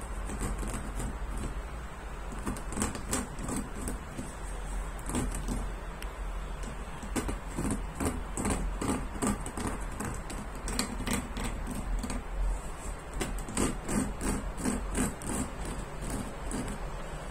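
Irregular run of small plastic clicks and flicks from the bristles of a cat self-groomer brush on the side of a litter box, snapping back as a cat rubs its face across them and a hand runs over them.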